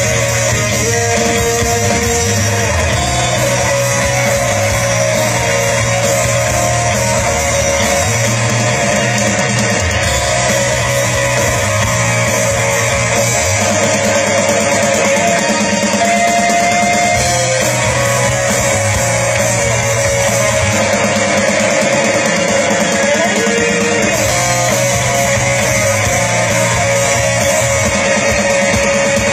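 Rock band playing live through a large outdoor stage PA during a sound check, with guitar to the fore; continuous and loud.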